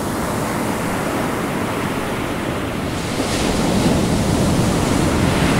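Ocean surf breaking on a beach: a steady rush of waves that grows a little louder about halfway through.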